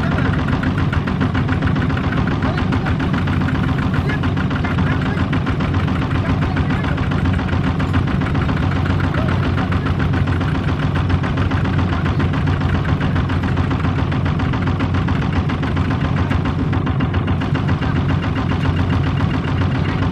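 A two-wheel walking tractor's single-cylinder diesel engine running steadily, with a rapid, even knock from its firing, while the tractor and its trailer are stuck in mud.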